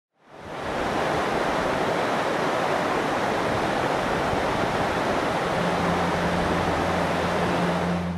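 Water cascading over rock ledges of a mountain creek waterfall: a steady rushing that fades in at the start and cuts off abruptly at the end. A low held musical drone comes in under it about two-thirds of the way through.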